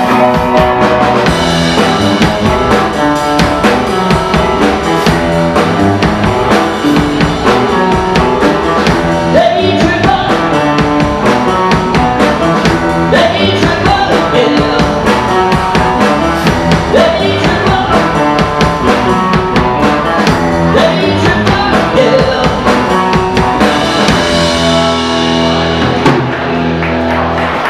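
Live rock band playing with a singer, drum kit and guitar, ending the song on a long held chord in the last few seconds.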